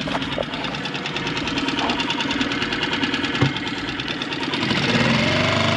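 Boat engine running steadily with a rapid, even knock. Music starts to come in near the end.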